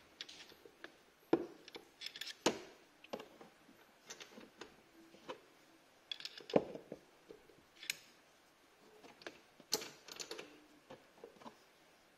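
Irregular sharp metallic clicks and knocks of a screwdriver shaft shifting in a tube-type spark plug wrench as it is levered against a spark plug that is still tight.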